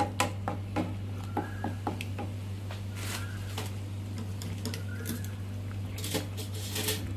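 Spoon or spatula stirring a pan of spinach gravy: a run of light clicks against the pan in the first two seconds, then a few short scrapes, over a steady low hum.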